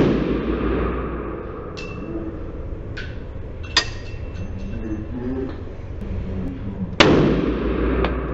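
Desert Eagle pistol firing single shots on an indoor range: the reverberating tail of one shot at the start and another loud shot about seven seconds in. Between the shots come a few sharp metallic pings and clinks, like spent brass casings landing on the bench and floor.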